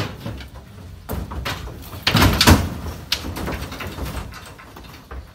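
A cow's hooves clattering and thudding on a steel loading ramp and truck bed as it climbs into the truck. There is a series of knocks, with the loudest bangs about two seconds in.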